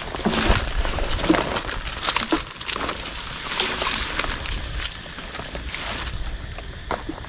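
Water sloshing and splashing with scattered knocks and rustles, as an eel trap is handled in shallow ditch water.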